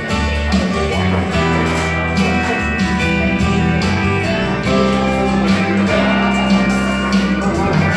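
Instrumental backing music led by guitar over sustained low bass notes, with no vocals.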